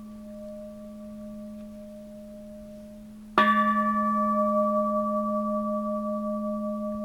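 Edo-period bronze Buddhist temple bell ringing on from an earlier strike, then struck again with its striker about three and a half seconds in and ringing out long, with a slow waver in its tone. A small split in its body does not affect the tone.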